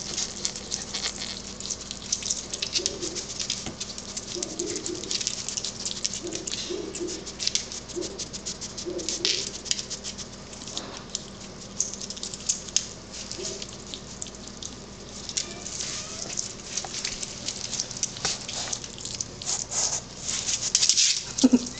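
A skunk chewing and tearing at chicken thighs: a dense, irregular run of wet smacking and crunching clicks.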